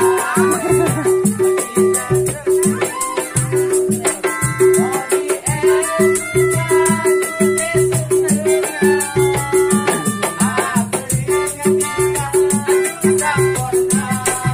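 Street busker's music: a melodica melody over a steady, fast percussion beat with a shaker-like rattle running through it.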